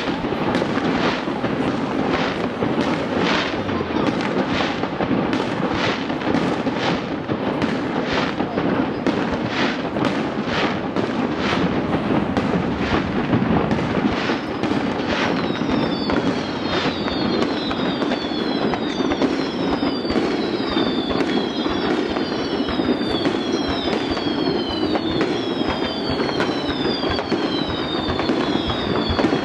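Fireworks going off in a rapid series, about two bangs a second. About halfway through, a run of falling whistles, roughly one a second, joins the bangs.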